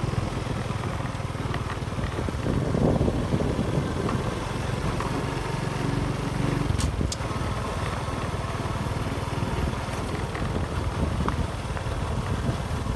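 Motorcycle running steadily while being ridden, its engine a low, even drone under road noise. Two quick clicks come about halfway through.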